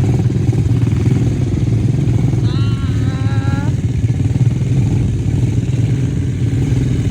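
ATV engine running steadily at a constant pace while being ridden.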